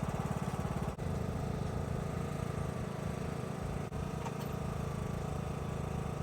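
Riding lawnmower engine running steadily with a fast, even pulse, with two brief dips in level.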